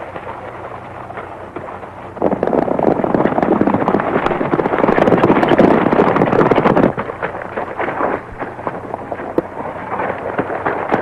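Horses galloping on hard ground: about two seconds in, a dense clatter of hoofbeats comes up loud for about five seconds, then thins to scattered knocks. Heard over the hiss and low hum of an old film soundtrack.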